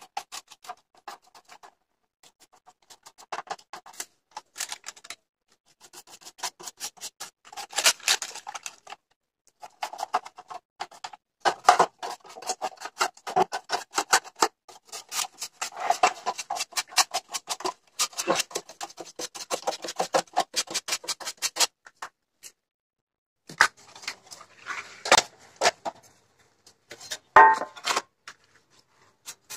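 Stiff-bristled paintbrush scrubbing dust off the rusty metal chassis and parts of an old stereo cassette player, a fast scratchy bristle rasp that comes in runs of a few seconds with short pauses. A few sharper knocks near the end.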